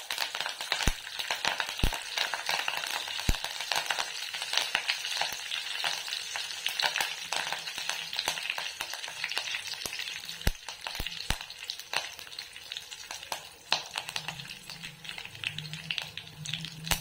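Curry leaves, dried red chillies and urad dal sizzling and crackling in hot oil in an aluminium kadai, with sharp pops now and then: a South Indian tempering (tadka) being fried.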